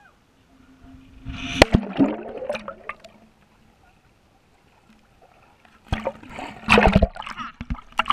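A cliff jumper plunging into a lake: one sharp splash of water entry about a second and a half in, then muffled bubbling underwater that fades to near quiet, then loud splashing as the jumper breaks the surface near the end.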